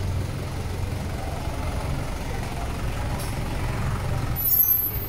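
A motor vehicle engine running steadily nearby, a low rumble, with a brief high-pitched hiss near the end.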